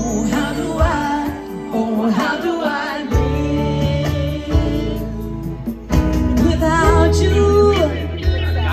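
Radio music: a ballad with a woman singing over a steady bass line.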